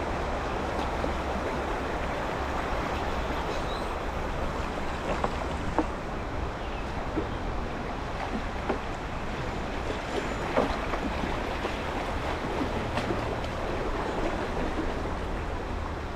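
Shallow rocky creek rushing steadily as it riffles past an open canoe, with a few short knocks and splashes scattered through it.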